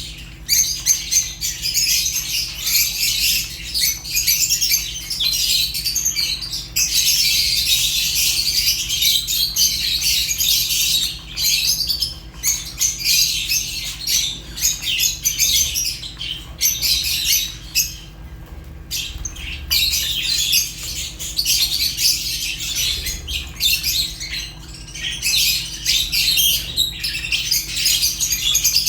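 A group of Fischer's and rosy-faced lovebirds chattering: a dense, continuous stream of rapid high-pitched chirps and squawks, easing into a brief lull about two-thirds of the way through before picking up again.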